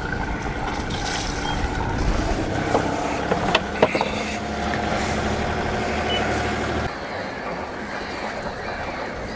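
Sailboat engine running steadily at low revs with the propeller in gear, and a few sharp clicks about three and a half seconds in.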